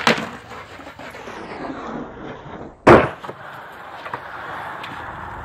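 Skateboard smacking down on concrete twice: a sharp hit right at the start and a louder one about three seconds in, with the wheels rolling over the concrete in between and afterwards.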